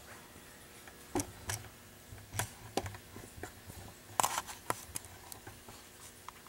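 Irregular light clicks and taps, the loudest cluster about four seconds in: handling noise from a camcorder being zoomed and tilted by hand.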